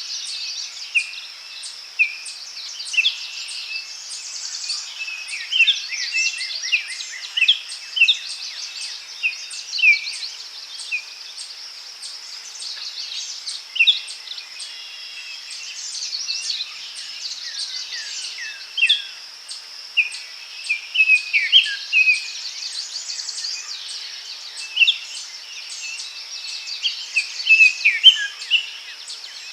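Forest ambience: many songbirds chirping and trilling over a steady, high insect buzz.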